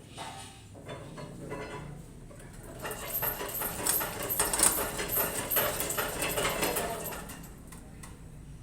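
Metal clinking and rattling of tools and parts, a dense run of quick clicks from about three seconds in that fades out about seven seconds in.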